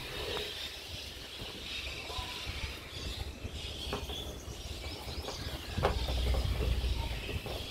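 Hands wrapping insulating tape from a roll around a bundle of armoured cable: scattered light clicks and rustles of handling. A louder low rumble comes in about six seconds in and lasts over a second.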